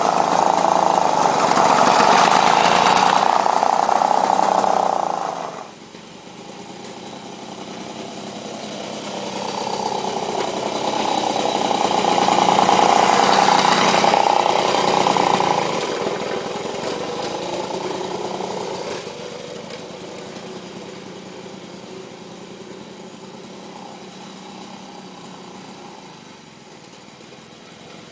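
Lawn-Boy 5247 two-stroke push mower engine running under load while mowing. Loud at first, it drops off abruptly about five seconds in, swells again near the middle as it passes close, then fades as it moves away. Its muffler is clogged with carbon, which the owner takes for the cause of its heavy smoking.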